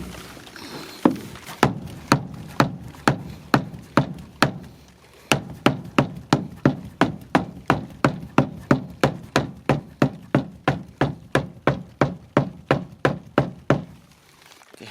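Rubber mallet tapping repeatedly on a pickup's fuel tank to jar a possibly stuck fuel pump in a crank-no-start diagnosis. The strikes come about twice a second at first, then a faster steady run of about three a second from about five seconds in, stopping shortly before the end.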